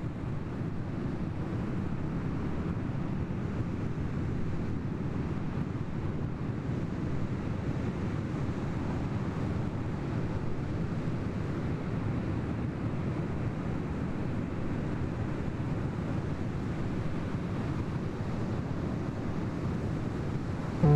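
Wind blowing across the camera's microphone: a steady, low, even noise.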